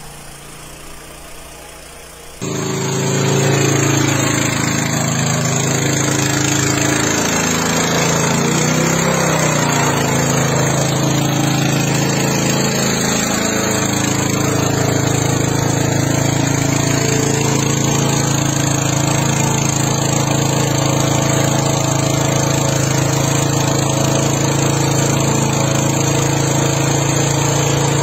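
An engine running steadily. It comes in abruptly about two seconds in, and its pitch dips and rises briefly about ten seconds in, over a steady rushing noise.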